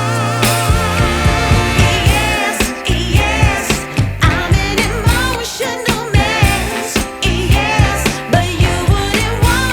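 Background music: a soul/pop song with a steady beat, bass and a singing voice.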